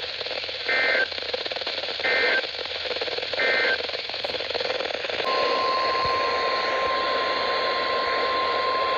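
NOAA Weather Radio alert signalling: three short bursts of two-pitch EAS/SAME digital data tones about 1.4 s apart, the end-of-message code closing the previous warning, then, about five seconds in, the steady single-pitch 1050 Hz weather radio warning alarm tone sounding for about four seconds. Radio static hiss runs underneath.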